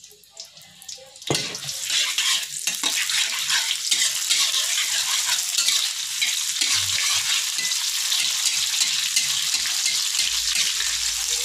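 Sliced onion frying in hot oil in a metal wok: a steady sizzle that starts suddenly about a second in. A spatula stirs the onion through the oil.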